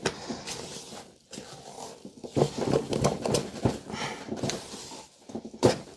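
Buttercream being stirred and folded by hand with a spatula in a bowl, giving irregular squelching and scraping strokes, to work in yellow colouring.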